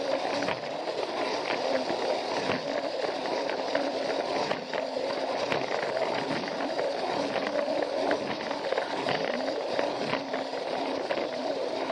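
Battery-powered Plarail toy train running along plastic track: a steady whir of the small motor and gearbox with a continual patter of clicks as the wheels cross the track joints.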